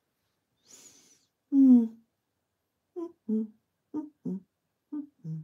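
A woman humming to herself without words: one loud, drawn-out note that falls in pitch, then six short notes in quick pairs.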